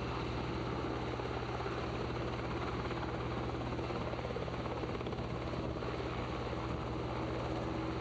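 Helicopter running steadily, its engine and rotor chop heard from on board.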